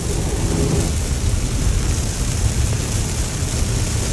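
Heavy rain beating on a car's roof and windshield, heard from inside the cabin, as a steady hiss over a continuous low rumble.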